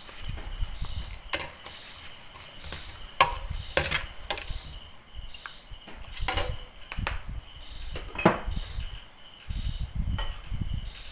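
Pink plastic spoon stirring raw small fish in an aluminium pot, with irregular knocks and clicks as it strikes the pot's side, over low rustling of the handling.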